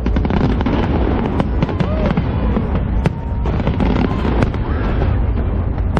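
Large fireworks display: many sharp cracks and bangs in quick succession over a continuous low rumble, with crowd voices calling out.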